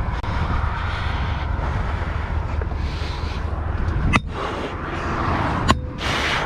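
Two sledgehammer blows on a steel U-channel sign post, about a second and a half apart, over a steady low rumble. The second blow leaves a short metallic ring.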